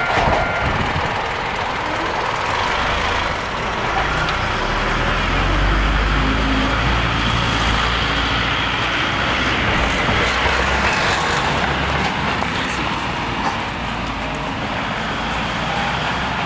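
Steady rumble of a passing vehicle, with a deep low rumble swelling between about four and ten seconds in and easing off towards the end.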